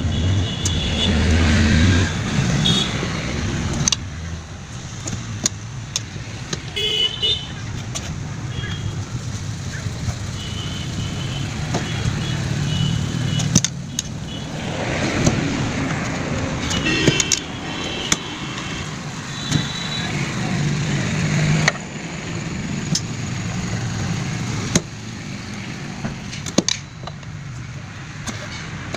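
Road traffic passing by, with short high tones now and then, likely horns, and scattered sharp taps and knocks.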